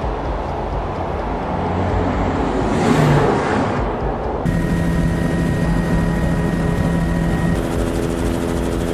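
Loud, even rumbling roar with a brief swell about three seconds in. About four and a half seconds in it changes abruptly to a steady engine drone holding several fixed pitches, of the kind heard on board an aircraft.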